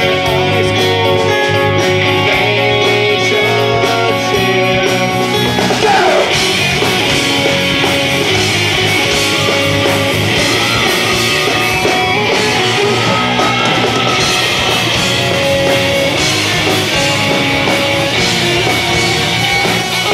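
Live rock band playing with electric guitars. A falling guitar slide comes about six seconds in, and the band plays fuller after it.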